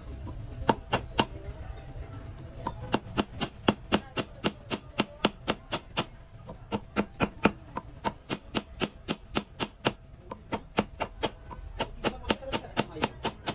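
Small goldsmith's hammer tapping on metal in quick, even strokes, about three to four a second, each strike with a short bright ring. The tapping pauses briefly about a second in and again about ten seconds in.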